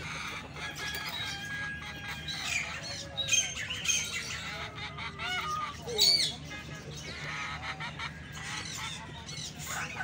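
Many caged show birds calling over one another: a mix of chirps, short whistles and squawks, with the loudest squawks about three to four seconds in and again about six seconds in.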